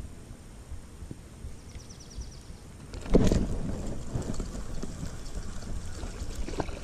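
A spinning rod and reel handled in a plastic kayak: a run of fast light clicks, then a sudden loud knock about three seconds in, followed by low rustling handling noise.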